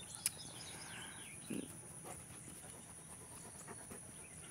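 Faint outdoor ambience with birds chirping in the distance, a single sharp click near the start and a short low sound about a second and a half in.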